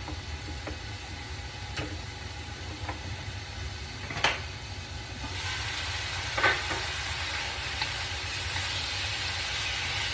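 Chicken pieces and frozen stir-fry vegetables sizzling in a hot pan, the sizzle growing louder about halfway through, with a few sharp clicks.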